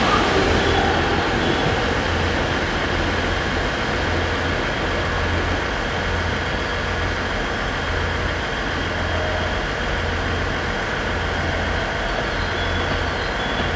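JR 701 series electric multiple unit pulling away and running off into the distance. Its running noise eases over the first couple of seconds, then settles into a steady low rumble.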